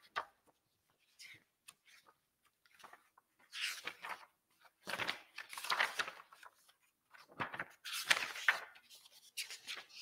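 Short rustling and handling noises close to a desk microphone, coming in four or five bursts of about a second each with near quiet between them.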